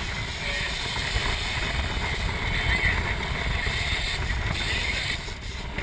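Steady rumble and hiss aboard a sportfishing boat at sea: the boat's engine running, with wind on the microphone. The hiss eases slightly about five seconds in.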